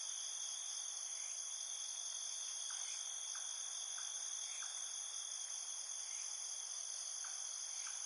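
Steady high-pitched insect chorus of crickets, several unbroken shrill tones, with faint short ticks repeating a little under twice a second.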